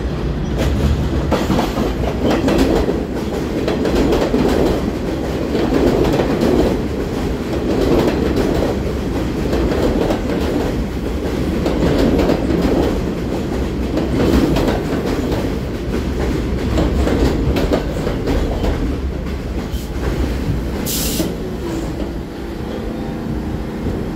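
R46 subway train pulling into an elevated station and slowing to a stop: a heavy rumble with the wheels clattering over the rail joints. A short hiss comes near the end, and the train settles to a steadier, quieter hum once it has stopped.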